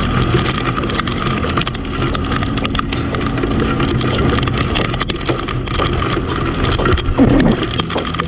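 Sundown Next 250 motorcycle engine running steadily under a constant rushing noise, with many small clicks scattered throughout.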